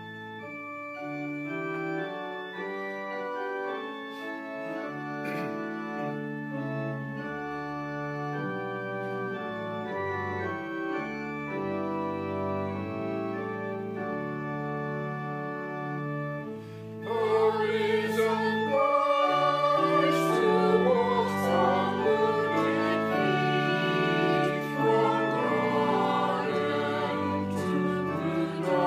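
Church organ playing a sustained, chordal introduction to a choir anthem. About seventeen seconds in, the choir comes in singing over the organ, and the music grows louder.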